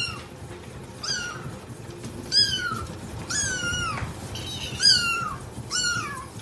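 Kitten mewing over and over: six short, high-pitched calls, each falling in pitch, about one a second.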